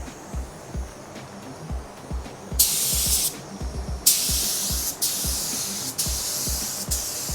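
Compressed-air HTE paint spray gun hissing as it sprays clear coat at about 26 PSI: a short burst about two and a half seconds in, then steady spraying from about four seconds in. Background music with a steady beat underneath.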